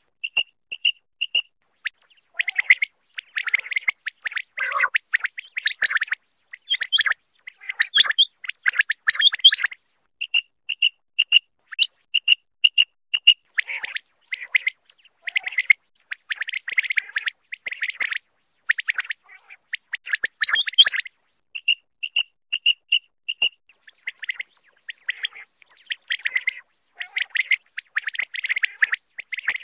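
Common quail calling: runs of short, evenly spaced high piping notes, about two a second, alternating with denser bursts of rapid, chattering notes.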